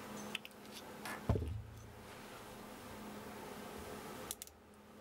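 Handling noise from a laser engraver's aluminium-extrusion frame: a few light clicks, then a dull thump about a second in as the frame is set down on the wooden workbench, and a couple more clicks near the end. A faint steady low hum runs underneath.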